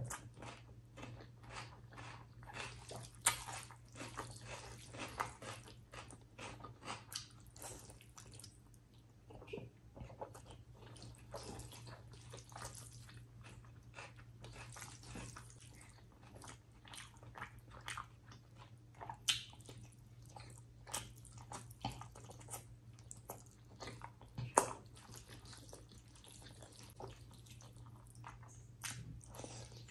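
Wet chewing and mouth smacks of rice and chicken liver curry eaten by hand, mixed with the squelch of fingers working rice into gravy; a few sharper clicks stand out. A low steady hum runs underneath.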